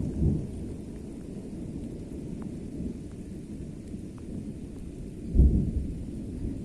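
Thunder rumbling low and continuously, with a louder boom about five and a half seconds in. It comes from powerful ground strikes a few kilometres away, which the filmer supposes are positive lightning strikes.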